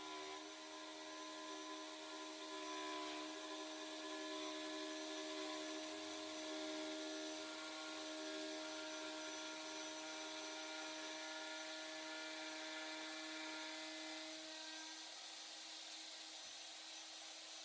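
DeWalt router running at steady speed with a half-inch up/down-cut spiral bit, cutting grooves for plywood dividers in black walnut. The motor whine holds one even pitch throughout.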